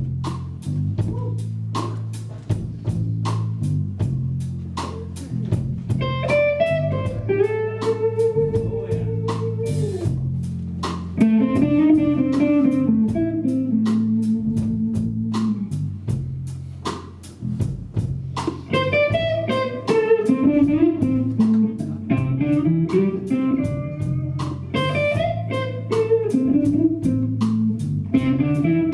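Live blues-rock band: an electric guitar plays a lead solo of bent, gliding notes in phrases over a steady bass and drum groove. The lead line comes in about six seconds in.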